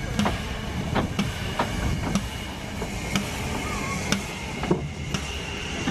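Narrow-gauge steam tank locomotive moving slowly along the track, with irregular clanks and knocks from its wheels and running gear over the rails, over a steady steam hiss and low rumble.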